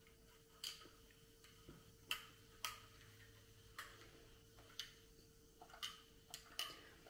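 Ice cubes clinking against a glass of soda: about nine light, sharp clicks at irregular intervals, over a faint steady hum.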